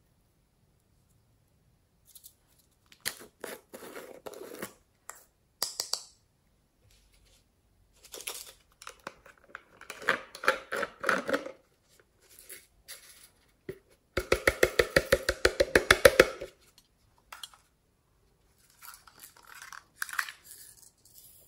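Slime being squeezed and scraped out of small plastic containers into a glass bowl: intermittent sticky squelching and crackling, with a fast run of clicks for about two seconds past the middle.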